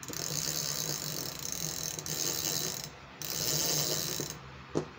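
Rapala XTP Husky 5000 spinning reel's mechanism turning with a ratcheting whirr, in two stretches: the first about three seconds long, the second about a second after a short pause. A single click near the end.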